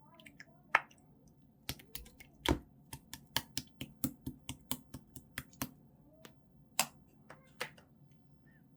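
Clear slime being pressed and folded by hand, giving a string of sharp pops and clicks, about three or four a second in the middle, with a few single louder pops before and after.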